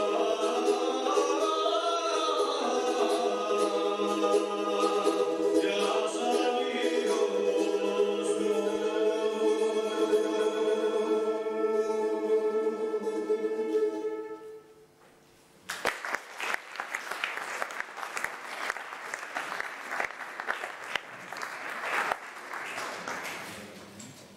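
A folk bagpipe plays a melody over its steady drone and stops about 14 seconds in. After a brief pause the audience applauds, and the applause fades toward the end.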